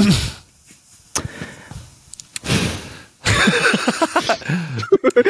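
Two men laughing: a sharp outburst at the start, a breathy exhale a couple of seconds in, then hearty, continuous laughter over the last two seconds.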